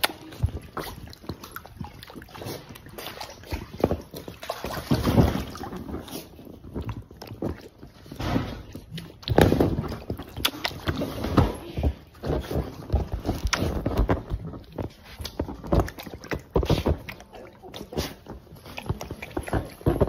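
Puppies wading in shallow water in an inflatable paddling pool, their paws splashing and sloshing the water in irregular bursts.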